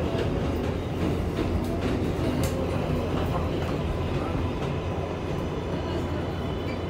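New York City Subway 7 train running on its elevated track, heard from inside the car: a steady rumble with a few faint clicks from the rails.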